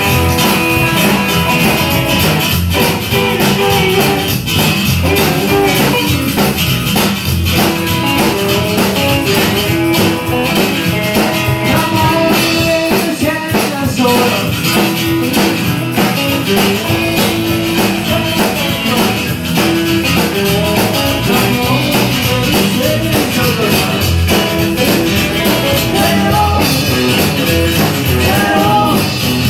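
Live rockabilly band playing: upright bass, hollow-body electric guitar, acoustic guitar and drum kit, loud and steady.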